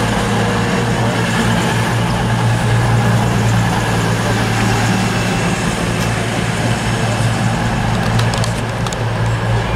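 Class 220 Voyager diesel multiple unit's underfloor diesel engines running steadily with a low drone. A few light clicks come near the end.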